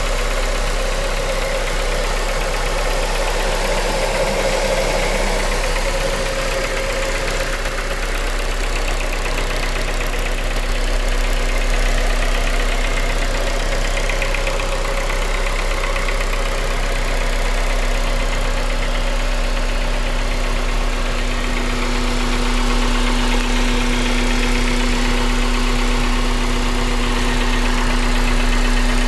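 Honda K20A four-cylinder engine running steadily, with injector tick and a persistent light knock whose cause is unknown; the owner thinks it too quiet to be rod knock. A steady hum joins about two-thirds of the way in.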